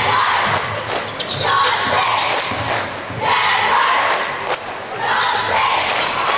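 A basketball being dribbled on the gym floor, about two bounces a second, over crowd noise that rises and falls in waves.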